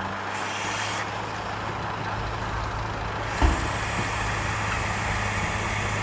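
Dump truck's diesel engine running steadily with its tipper bed raised, with a brief hiss of air near the start and a single heavy thump about three and a half seconds in.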